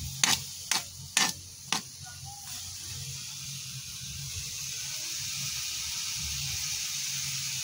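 Sliced bitter melon (ampalaya) sizzling steadily in hot oil in a frying pan. In the first two seconds a spatula knocks on the pan four times, about half a second apart.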